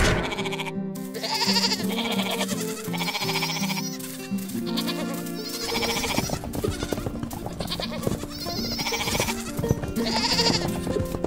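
Sheep bleating several times, one call after another, over background music.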